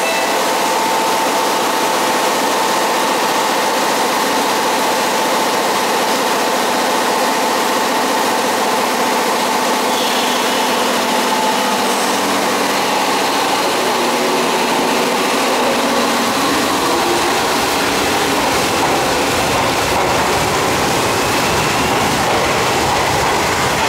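Heavy rain hissing steadily while a JR Kyushu 103 series 1500 subseries electric train stands at the platform, shuts its doors about ten seconds in, and then pulls away, its motors rising in pitch as it picks up speed.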